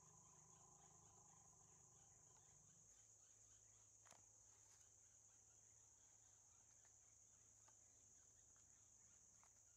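Near silence: a faint, steady, high-pitched drone of forest insects, with one faint click about four seconds in.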